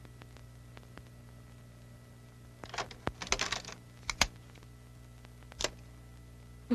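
Sharp cassette boombox being worked by hand: a cluster of plastic clicks and rattles from the cassette deck as the tape is put in to play, then a sharp click and, a little later, another as the deck's keys are pressed.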